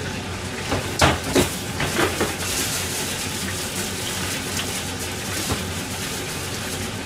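A few knocks and clinks of kitchenware, the loudest about a second in, over a steady hiss of kitchen noise.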